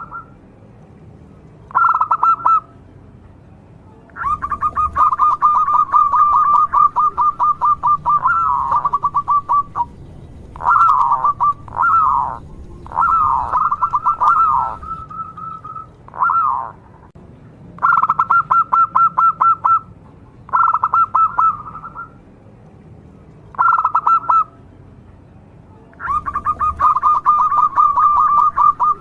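Zebra dove (perkutut) calling in bursts of fast, evenly pulsed notes. Some bursts run on for several seconds, others are short and end in falling slurs, with brief pauses between them.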